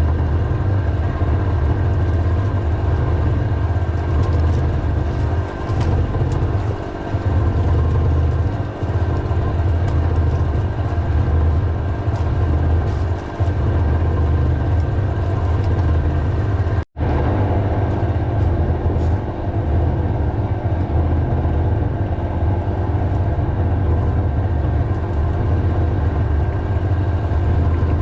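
An engine running steadily with a heavy low rumble.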